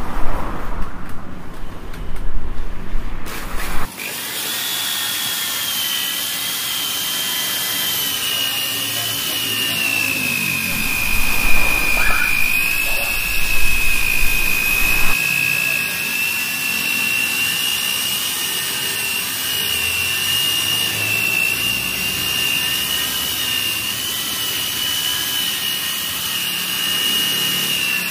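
Corded electric rotary car polisher running with a steady high whine as it buffs compound into dull, faded car paint; its pitch sags slightly around the middle. For the first four seconds, before the whine starts, there is loud uneven rumbling noise.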